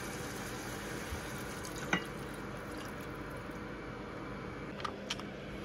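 Water being added to a pot of sautéed vegetables for a cream stew: a steady hiss of running water, with a light clink about two seconds in and two faint clicks near the end.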